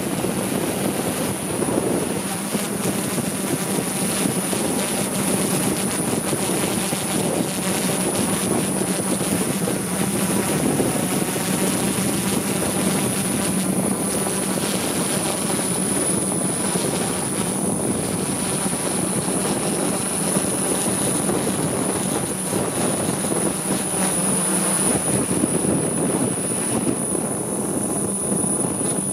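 Rotor aircraft in steady flight, heard from on board: a constant rushing rotor noise with a steady hum and a thin high whine held throughout.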